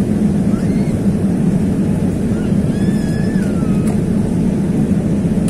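Jet airliner cabin noise at a window seat in flight: a steady, even low rumble from the turbofan engines and the airflow over the fuselage.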